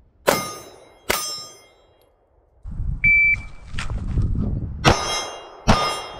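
Two pistol shots under a second apart, each followed by a steel target ringing. About three seconds in, a shot timer gives one short start beep, followed by rustling movement as the shooter spins around. Near the end come two more pistol shots with steel ringing.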